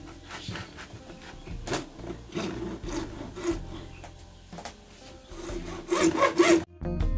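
Hand hacksaw with a homemade rebar frame cutting through a sheet of flattened PVC pipe in repeated back-and-forth strokes. The sawing cuts off abruptly near the end.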